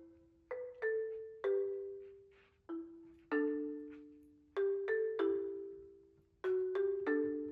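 Background music: gentle mallet-percussion melody, marimba-like notes struck in pairs and left to ring and die away.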